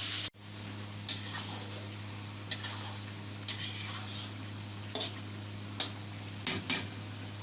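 Loud frying sizzle that cuts off abruptly just after the start, then a spoon or spatula stirring in a cooking pot, with several short taps and scrapes against the pot over a steady low hum.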